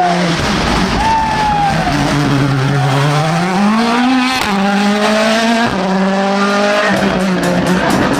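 Rally car engine revving hard under acceleration. Its pitch climbs, then drops at each gear change, and a rattle of sharp crackles comes near the end.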